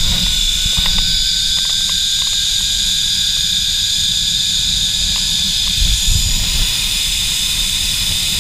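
Zipline trolley pulleys running along the steel cable in a steady high whine, with wind rumbling on the microphone.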